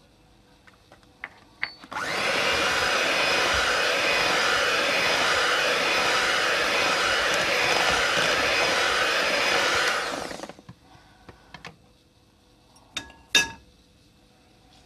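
Electric hand mixer with twin beaters running steadily through chocolate muffin batter in a bowl for about eight seconds, starting about two seconds in and switching off. A couple of sharp clicks near the end.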